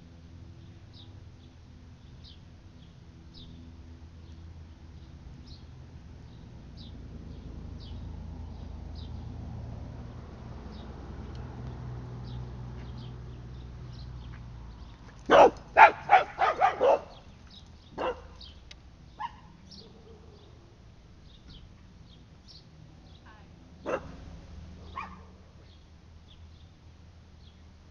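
Dog barking: a quick run of about six barks a little past halfway, then two single barks and two more near the end.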